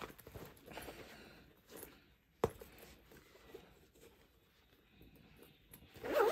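Faint rustling and handling of a fabric purse as it is turned right side out and shaped by hand, with one sharp click about two and a half seconds in and a louder rustle near the end.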